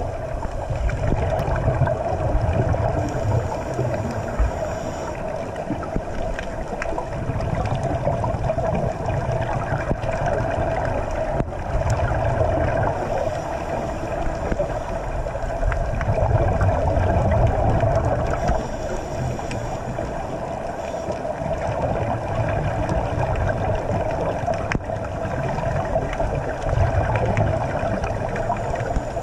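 Underwater sound through a camera's waterproof housing: a scuba diver's exhaled bubbles gurgling in low surges every four or five seconds, over a steady muffled hum.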